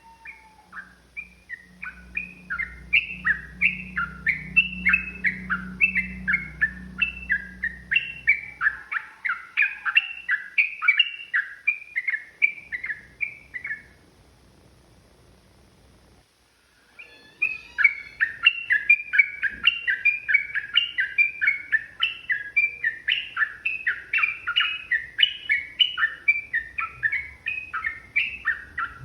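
Sooty-headed bulbul (trucukan) singing a long, fast run of short whistled notes, about three a second, which breaks off for about three seconds midway and then starts again.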